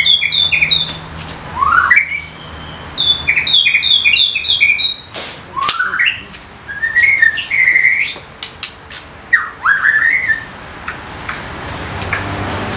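White-rumped shama singing: runs of quick, high chattering notes broken by rising whistled sweeps, dying away near the end.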